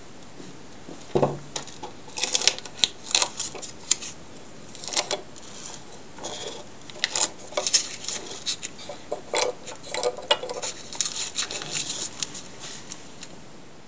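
Wood-turning chisels and other hand tools picked up and set down on the lathe's wooden board: an irregular scatter of sharp clinks and knocks, wood and steel.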